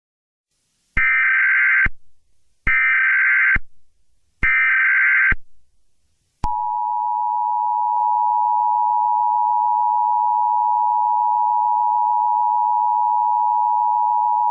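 Emergency Alert System (EAS) broadcast tones. First come three short buzzy bursts of the SAME digital header, each just under a second long with a short gap between them. Then the EAS two-tone attention signal holds steady for about eight seconds, marking the start of an emergency alert.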